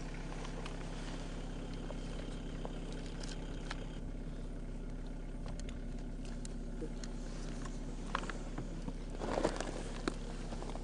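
Steady low mechanical hum, with scattered light clicks and a short cluster of knocks and rustling about nine seconds in.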